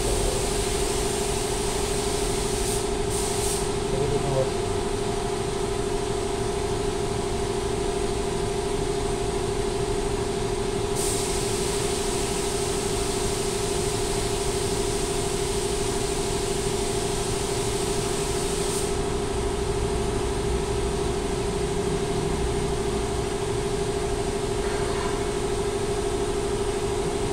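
Steady mechanical hum at one constant pitch, with a few faint ticks.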